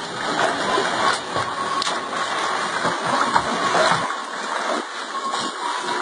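Swimming-pool water splashing and sloshing continuously as a small dog paddles and a man wades through the water, with a few sharper slaps.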